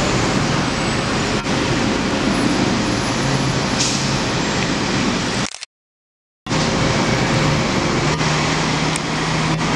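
Heavy street traffic with a concrete mixer truck's diesel engine running as it drives past close by, its engine note rising near the end. The sound cuts out completely for about a second midway.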